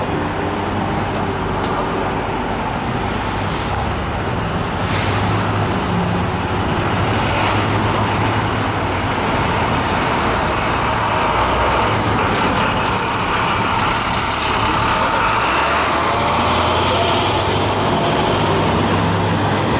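Street traffic noise with the diesel engine of a Nova Bus LFS articulated city bus running as the bus drives through the intersection, the engine hum growing a little louder as it comes close.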